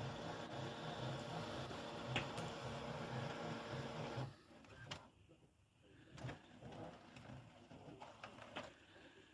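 Epson Expression Premium XP-6000 inkjet printer's paper-feed mechanism running with a steady, rhythmic whir, which stops abruptly about four seconds in, followed by a few faint clicks. It is a failed attempt to feed the loaded photo paper.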